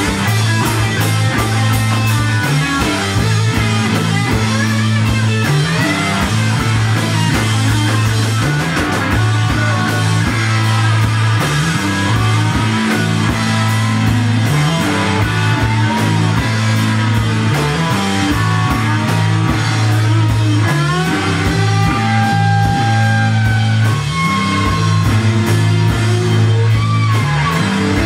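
Rock band playing live at full volume: electric guitar and drum kit over a low riff that repeats every couple of seconds. In the second half there are long lines that bend in pitch.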